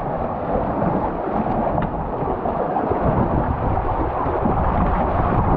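Thunderstorm: a steady, loud rush of rain and wind with a low rumble underneath.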